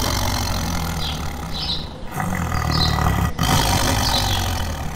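Tiger growling in long, low rumbles, broken briefly about two seconds in and again just after three seconds.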